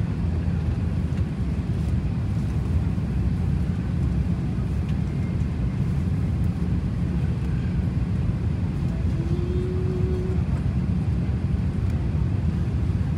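Jet airliner cabin noise in flight: a steady low rumble of engines and airflow, with a faint short tone about nine seconds in.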